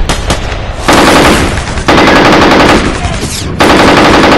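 AK-pattern assault rifle firing on full automatic in long bursts. Two bursts come almost back to back from about a second in, and another starts near the end.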